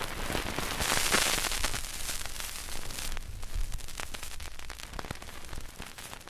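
Crackling static: a hiss dotted with scattered pops and clicks, loudest about a second in and settling lower after about three seconds.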